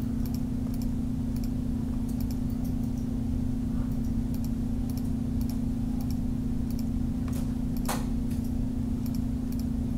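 A steady low hum throughout, with scattered faint computer-mouse clicks as frames are clicked through one by one; one click about eight seconds in is louder.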